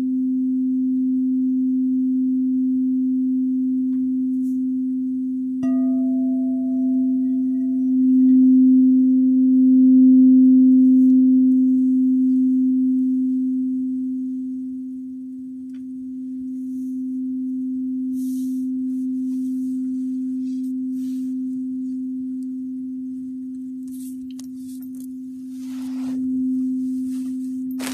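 Singing bowl sounding one steady low tone that swells and fades. About six seconds in, a strike adds higher ringing overtones that die away over several seconds. Scattered clicks near the end.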